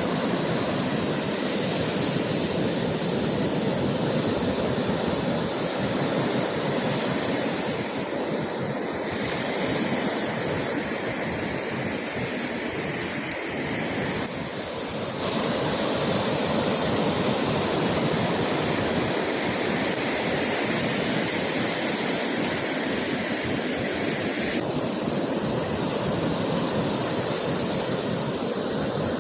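Ocean surf breaking on a beach: a steady, continuous rush of waves.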